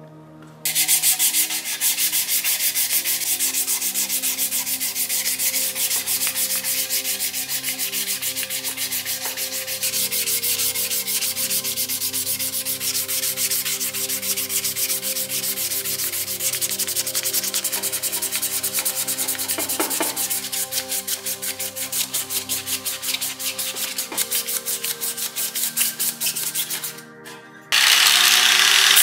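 Hand sanding the metal body of a tin oil lamp with 400-grit wet-and-dry sandpaper: rapid, continuous back-and-forth rubbing strokes. Near the end the rubbing stops briefly and a louder sanding noise cuts in.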